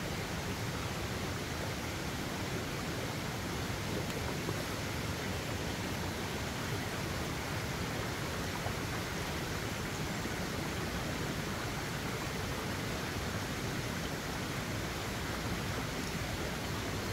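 Steady rushing of a rocky forest stream's running water.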